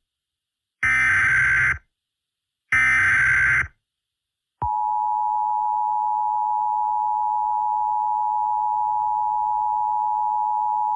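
Emergency Alert System tones. Two short bursts of warbling digital data, the last of the three-burst SAME header that encodes the Child Abduction Emergency alert, come about a second apart. About a second and a half later the steady two-tone EAS attention signal (853 and 960 Hz together) starts and holds, announcing the alert message.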